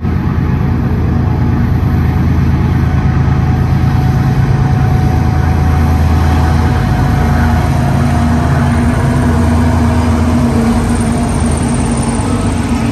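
BNSF diesel-electric locomotives at the head of a double-stack intermodal freight train, their engines running steadily under power as the train approaches and reaches the listener, over a broad rumble of the moving train.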